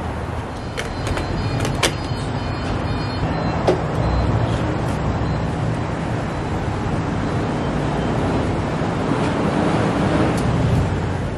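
Steady hum of vehicles and traffic at a gas station pump island. A few sharp clicks and a short run of high beeps come in the first few seconds.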